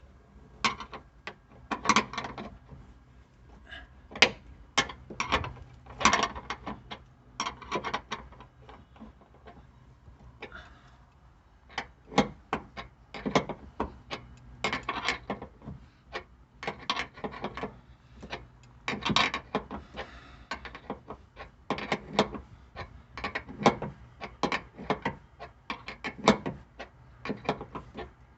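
Hand tool turning a tight bolt into the truck's metal: irregular runs of short metallic clicks and scrapes as the threads go in stiffly.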